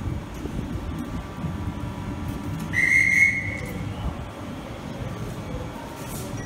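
A single short blast of a railway staff whistle, under a second long, about halfway through. Under it runs the steady low hum of a South West Trains electric multiple unit standing at the platform.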